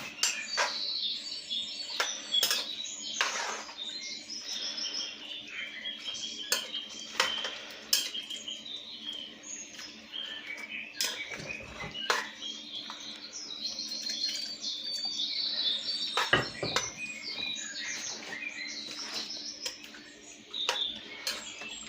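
A spoon knocking and scraping against a cooking pot as food is stirred, with sharp clicks scattered throughout. Birds chirp in the background.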